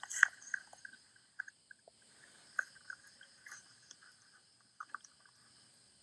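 Scattered small clicks and ticks, irregular and not in any rhythm, over a faint steady high-pitched background hiss.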